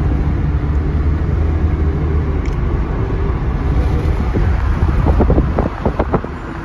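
Inside a moving car's cabin: steady low engine and road rumble from riding in traffic, with a brief cluster of short knocks about five seconds in.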